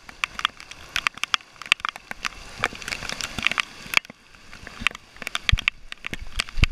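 Heavy rain, with large drops striking the phone and its microphone in dense, irregular cracks and taps, over a faint rush of floodwater gushing up from a street drain.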